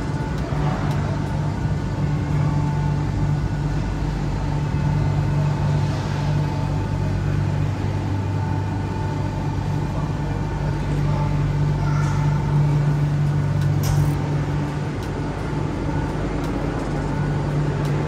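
Steady low mechanical hum with a faint constant whine above it.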